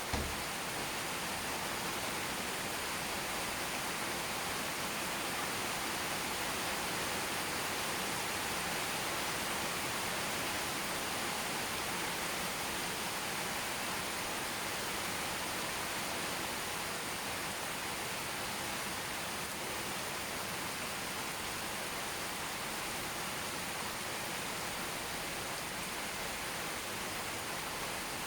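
Steady rain falling: an even hiss with no single drops standing out, and one low thump at the very start.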